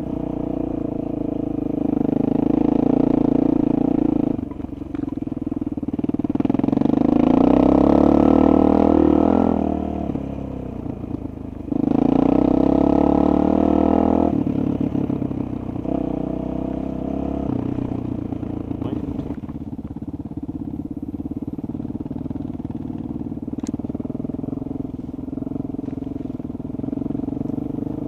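Honda XR400's single-cylinder four-stroke engine heard from on board, riding a rough dirt track. The throttle opens and closes, so the engine note swells louder about two, six and twelve seconds in, then settles to a steadier, quieter run after about seventeen seconds.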